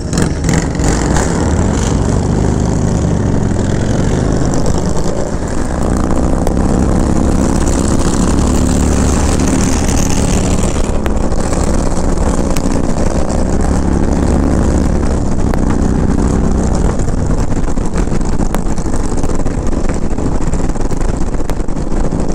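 Touring motorcycle engine pulling away from a stop and climbing through the gears, then running steadily at highway speed, with wind noise on the microphone.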